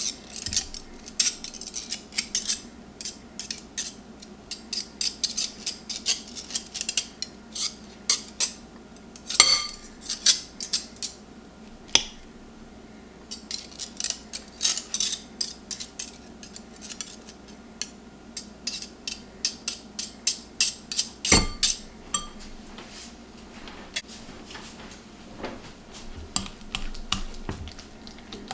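Dishes and cutlery clinking and knocking in irregular runs of sharp clicks, with short pauses, over a faint steady hum.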